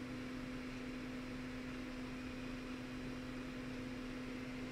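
A steady low electrical hum with a faint even hiss underneath.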